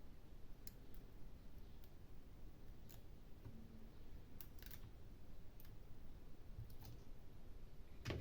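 Faint, scattered small clicks and taps, about seven spread over eight seconds, from hand tools working on a tablet's small internal parts and connectors.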